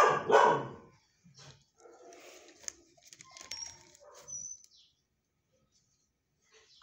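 A dog barks twice in quick succession at the start, followed by faint scattered noises and a couple of brief high chirps.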